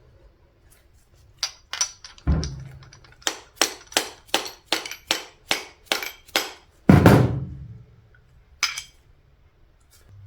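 Hammer tapping a seized wrist pin out of an old VW piston: a run of sharp knocks, most at a steady three or so a second, with two heavier blows that land with a deep thud, about two seconds in and about seven seconds in.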